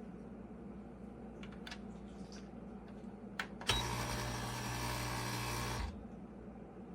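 Espresso machine's pump running for about two seconds with a steady buzzing hum. It starts just after a click, a little past the middle, and cuts off abruptly.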